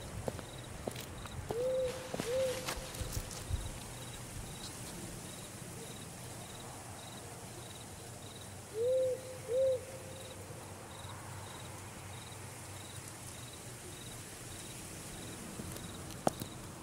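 An owl hooting, two hoots in a pair, heard twice, over the steady chirping of crickets. A few footsteps sound near the start.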